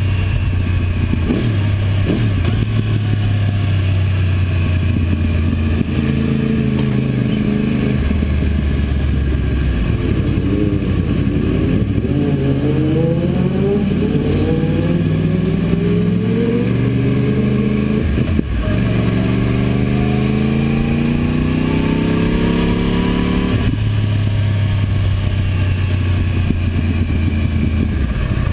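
Yamaha YZF-R1's inline-four engine heard from the rider's seat with wind rush: running steadily at first, then rising in pitch as the bike accelerates, with a brief break about eighteen seconds in, rising again, and settling back to a steady lower note near the end.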